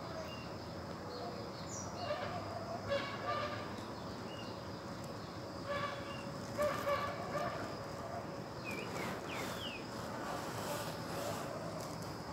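Tropical forest ambience: a steady high insect drone throughout, with several bouts of quick repeated animal calls and a couple of short falling chirps.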